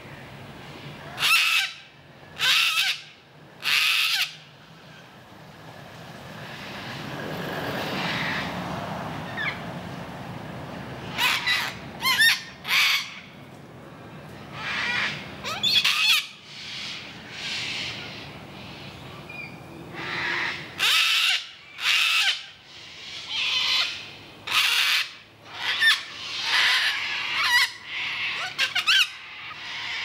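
Sulphur-crested cockatoos screeching with harsh, raspy calls: three in the first few seconds, a cluster near the middle, and a quick run of many calls in the last third.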